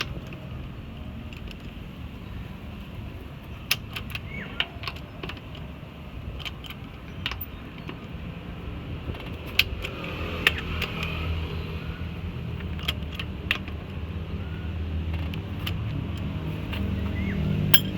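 Scattered sharp metallic clicks and clinks of hand tools over a steady low hum, the hum growing a little stronger about halfway through.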